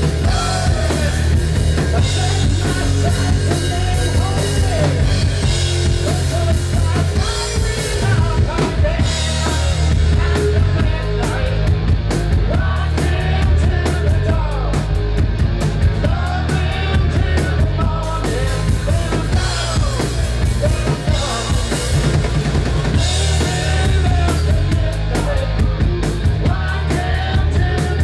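Live rock band playing loudly and without a break: drum kit with bass drum and snare driving under distorted electric guitars and bass.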